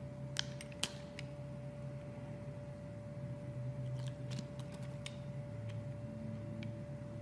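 Knife cutting into a bar of soap: scattered crisp clicks and cracks, a cluster of them about four seconds in, over a steady low hum.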